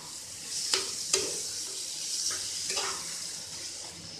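Mashed potato and grated paneer filling frying in a kadhai: a steady sizzle, with the spatula scraping and knocking against the pan several times as it is stirred.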